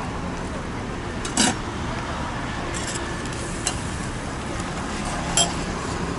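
A metal spatula clinks and scrapes against a large flat steel pan as rice noodles for pad Thai are stirred in it. There are a few sharp clinks, the loudest about a second and a half in, over a steady hum of street noise.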